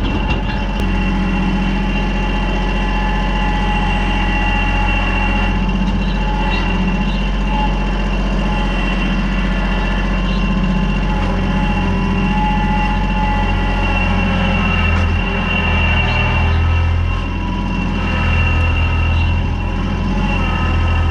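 Kubota L3800 tractor's diesel engine running steadily, its level rising and falling a little as the load changes.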